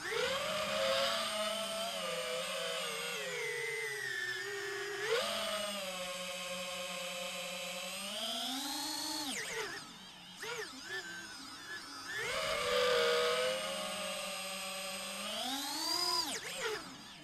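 Brushless motors and propellers of a 5-inch FPV quadcopter (T-Motor Velox V2207 2550KV) whining, the pitch rising and falling with throttle: it swells sharply several times, drops away suddenly near the middle, turns choppy for a couple of seconds, then holds steady before a last climb and drop near the end.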